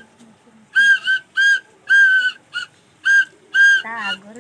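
A series of short, high whistled notes, all at the same pitch, repeating about twice a second at uneven spacing, with a wavering, warbling note near the end.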